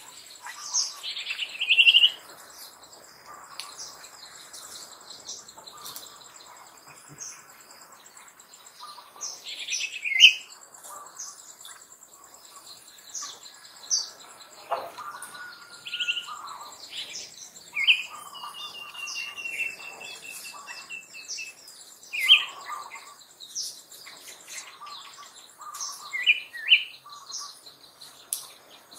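Birds chirping in short scattered calls, with a longer trill in the middle, over a steady faint high insect buzz.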